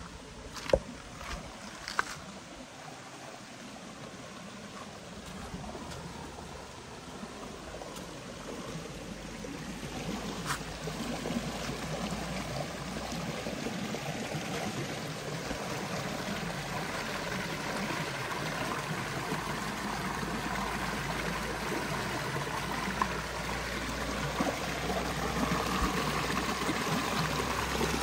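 Shallow creek water running and trickling over rocks, growing steadily louder from about ten seconds in as the white water of a small cascade comes close. A few short, sharp knocks in the first two seconds and again about ten seconds in.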